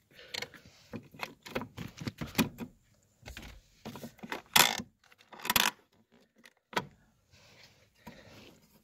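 Parking brake cable of a 2005 Mazda 3 being worked out of the car by hand: a run of irregular metallic clicks and rattles, with two louder noises about four and a half and five and a half seconds in.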